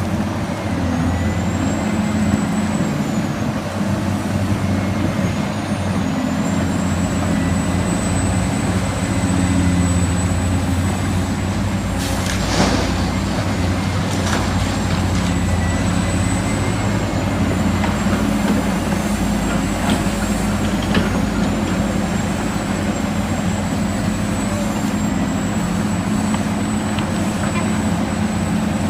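Heavy diesel engine running steadily, like a large truck or earthmover, with a thin high whine wavering above it and a sharp knock about twelve seconds in.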